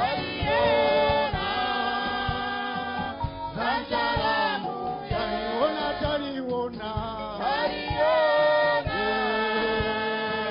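A small group singing a gospel song together, several voices amplified through handheld microphones.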